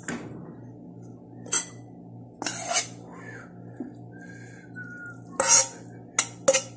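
Eating utensil clinking and scraping against a bowl as freshly drained instant noodles are mixed with their sauce. There are a handful of separate short clatters, the loudest near the end.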